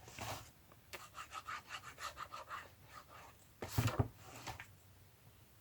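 Paper strips being handled at a craft table: a short rub, then a quick run of small crackles for about a second and a half, then a single thump about two-thirds of the way through, followed by a softer rub.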